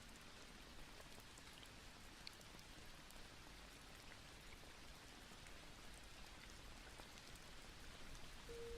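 Near silence with a faint, steady rain-like patter and a few tiny ticks; no music.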